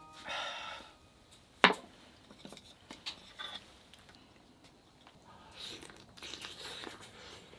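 Scattered small handling sounds: a short hiss just after the start, one sharp loud click about a second and a half in, then light clicks and soft rustling.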